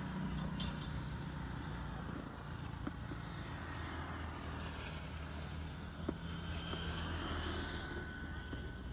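Motorbike traffic passing on a wet road: engines running with a steady low drone.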